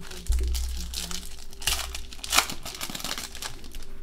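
Foil trading-card pack wrapper being torn open and crinkled by hand, a dense run of crackling with the sharpest crackle a little past two seconds in, over a low handling rumble.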